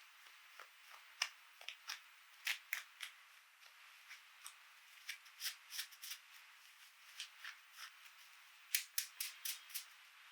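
Light, irregular clicks and taps of small plastic toy parts being handled, ending in a quick run of about six clicks near the end.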